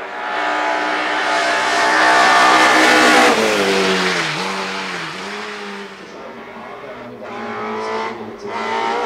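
A small racing car's engine at high revs, growing louder as the car comes up the hill and peaking about three seconds in. The engine note then drops steeply with two brief jumps back up, fades, and climbs again near the end as the car accelerates on.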